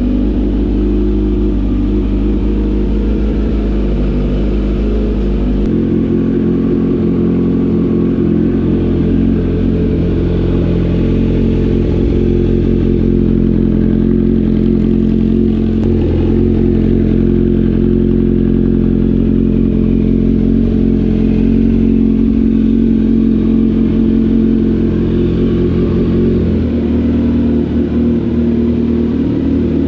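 Kawasaki Z900SE inline-four engine running through an Austin Racing aftermarket exhaust at steady revs. The engine note changes about six seconds in and again near the end.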